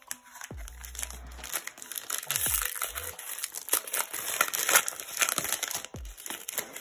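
Foil wrapper of an Upper Deck hockey card pack crinkling in the hands and being torn open.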